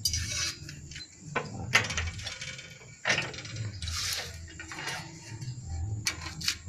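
Ribbed galvanized sheet-steel panel scraping and knocking against a homemade steel bending brake as the freshly bent piece is handled: a handful of separate metallic scrapes and clanks.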